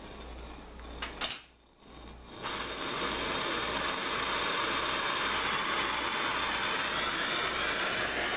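Handheld gas torch flame hissing steadily, heating a copper tube and brass fitting coated in solder paste to sweat the joint. It comes in about two and a half seconds in, after a brief click and a short gap.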